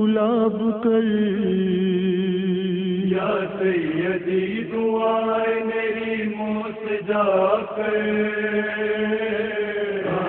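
Wordless devotional vocal chanting in an Urdu manqabat: long held notes with a wavering vibrato over a steady sustained drone.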